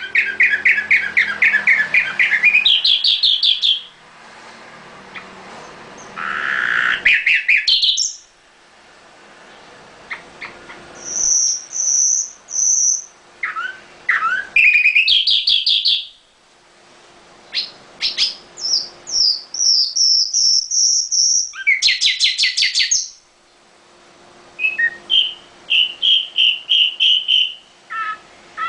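Caged nightingale singing: a string of separate phrases, each a fast run of repeated notes or a trill, some fuller and lower, others high and thin, with short pauses between phrases.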